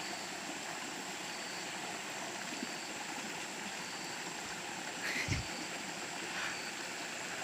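Steady rush of a flowing stream, with a brief bump about five seconds in.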